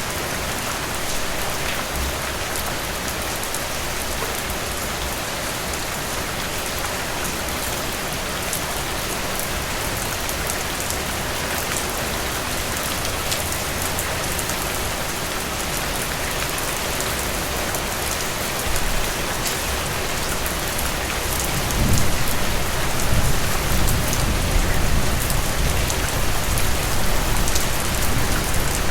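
Heavy rain falling steadily, with many sharp raindrop ticks. About three-quarters of the way in, a low rumble comes up and the sound grows louder.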